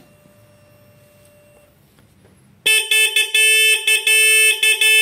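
OSRAM OHS80 motorcycle disc horn sounding about two and a half seconds in: loud, on one steady pitch, chopped into several short honks and then held in a long blast.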